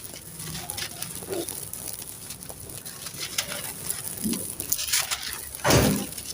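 Dry, gritty sand-cement crumbling and being crushed, a run of fine crackles and small gritty clicks, with one louder crunch near the end. A couple of short, low, animal-like calls sound faintly in between.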